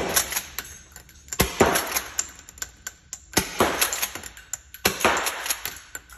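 Pump-action 12 gauge shotgun firing Byrna Kinetic less-lethal rounds four times, about a second and a half apart. Each shot is a sharp crack without a full gunshot blast, followed by the rattle of the pump being racked for the next shot.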